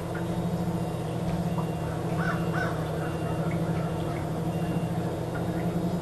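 Quadcopter's four brushless motors running with a steady hum, while crows caw repeatedly around it, two louder caws coming a little over two seconds in.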